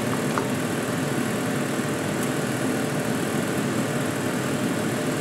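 Kitchen extractor fan running steadily at a loud setting, a constant whooshing noise that drowns out the room; it was switched on by mistake.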